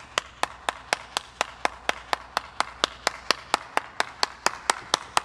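Hands clapping in a steady, even rhythm, about four claps a second.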